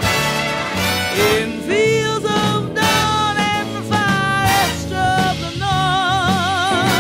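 Orchestral jazz ballad in an instrumental stretch: a lead line of long held notes that slide into pitch over a bass line, with a wide vibrato on the last note near the end.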